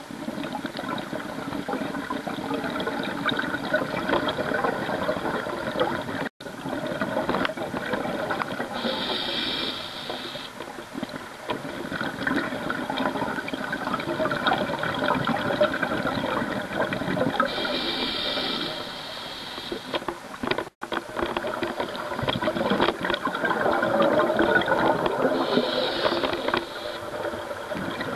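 Scuba regulator breathing heard underwater: a continuous rush and bubbling of exhaled air, with a brief higher hiss of inhalation about every eight seconds. The sound drops out for an instant twice.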